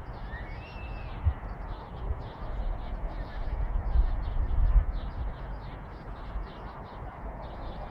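Outdoor birdsong: many quick repeated chirps, with a short whistled call about half a second in, over low rumbling bumps on the phone's microphone.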